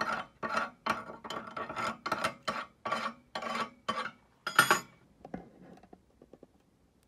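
Steel hand tool scraping slag off a fresh arc-weld bead on a steel angle, in quick back-and-forth strokes about two a second with a faint metallic ring. The strokes stop about five seconds in after one louder stroke, and a few faint clicks follow.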